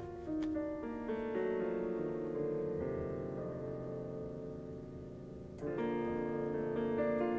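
Instrumental background music of slow, held chords, with a new chord coming in a little past halfway.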